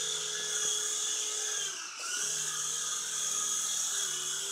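Small electric motors and spinning rotors of an RC toy helicopter in flight, a steady whirring whine. The pitch dips briefly about two seconds in, then picks back up.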